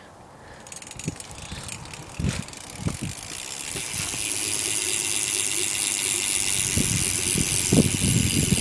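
Rear Mission Function cassette hub on a BMX freewheeling as the wheel spins, its pawls clicking so fast they make a steady buzzing rattle that grows louder over the first few seconds. A few dull knocks from the bike being handled, most of them near the end.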